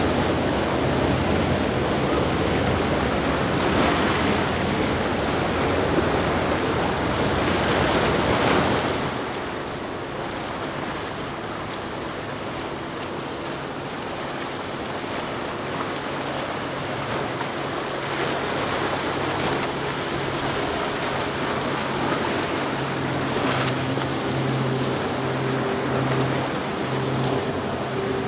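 Rushing water of waves and boat wake with wind on the microphone, loud for about the first nine seconds. Then the water noise drops and a boat's engine comes through as a steady hum that swells and pulses in the last few seconds.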